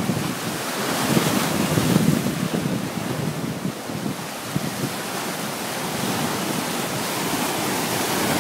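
Sea waves breaking and washing over large boulders along a rocky shore: a continuous surf rush with swells as each wave hits.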